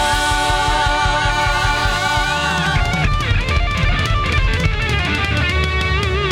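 Rock band playing an instrumental break: an electric lead guitar holds long notes with vibrato and bends over drums and bass, changing phrase about three seconds in.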